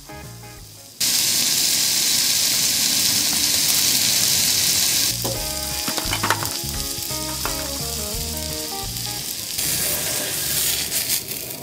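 Beef steak sizzling loudly as it sears on a small hot iron griddle. The sizzle starts abruptly about a second in and grows louder near the end, with background music under it for a few seconds in the middle.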